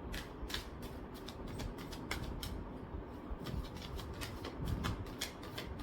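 A deck of reading cards being shuffled by hand: an irregular run of quick soft snaps and flicks of card against card, with a few louder slaps near the end.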